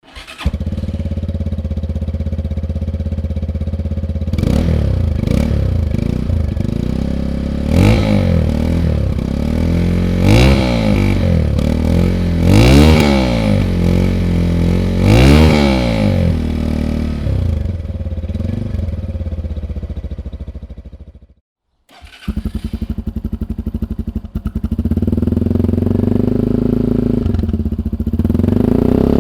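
Sinnis Terrain 125cc single-cylinder motorcycle engine starting and idling through its exhaust, revved in about six quick blips that rise and fall. About 21 seconds in it dies away and breaks off, then it idles again, a little faster near the end.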